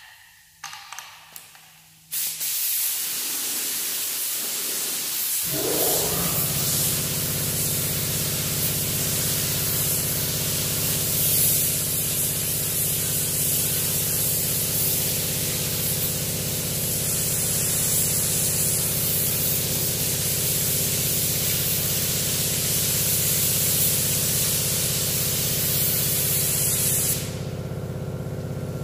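A paint spray gun hissing steadily as it sprays satin black paint. About five seconds in, a steady machine hum joins it. The hiss stops briefly near the end while the hum carries on.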